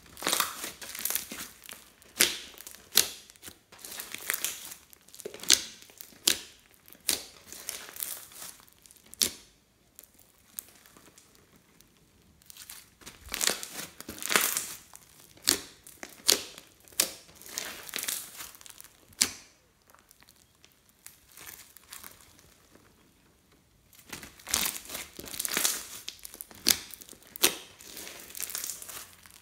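Hands squeezing and kneading a large mound of clear glitter slime mixed with small beads and sequins, giving dense sticky crackling and popping. The sound comes in three runs of handling with two short pauses between them.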